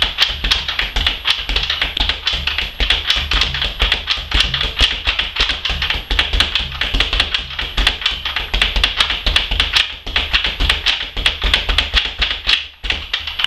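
Speed bag being punched in a fast, steady rhythm, the leather bag rattling against its rebound board with several sharp knocks a second. The rattle fades out near the end.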